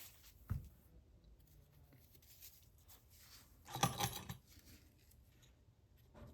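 Faint handling noises on a workbench: a soft knock about half a second in, then a brief scratchy rustle around four seconds in, and a small click near the end.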